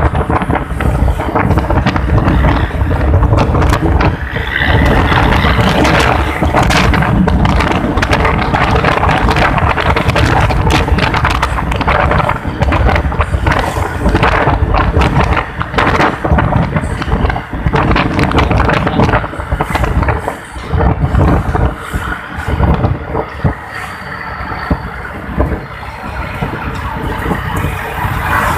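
Bus engine running loud through a modified 'ngorok' growling exhaust, a rough, rumbling note with irregular sharp crackles, easing somewhat after about twenty seconds.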